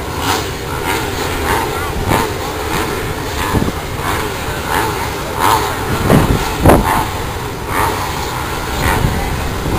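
A gate full of motocross bikes running at the start line, their engines idling and revved again and again while they wait for the gate to drop.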